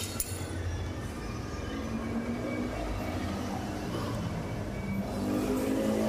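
Metal lathe running with a steady mechanical hum, getting a little louder near the end.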